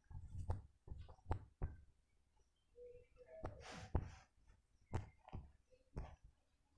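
Faint scattered knocks and clicks, about ten, unevenly spaced, with a short hiss a little past the middle.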